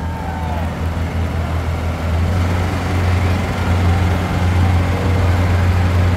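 Engine of a passing parade vehicle running with a steady low drone, growing louder after about two seconds over a haze of street and crowd noise.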